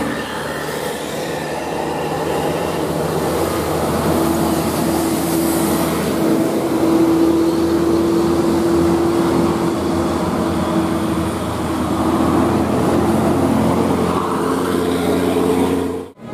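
Large bus running loudly as it passes close, with engine and road noise and a steady drone held for several seconds in the middle. The sound cuts off abruptly near the end.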